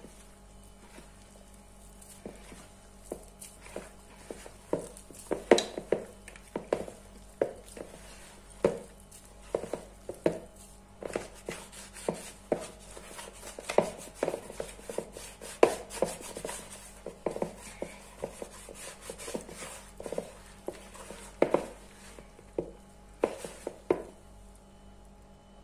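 A hand kneading and squeezing soft, slightly sticky sfenj dough in a plastic mixing bowl: irregular soft slaps and thumps, about one or two a second.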